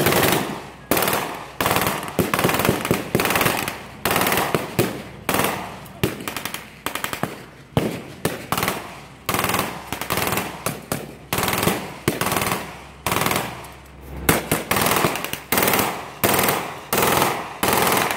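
Blank-firing machine guns and rifles in a mock battle: short rapid bursts of shots, one after another about every second, with single shots between.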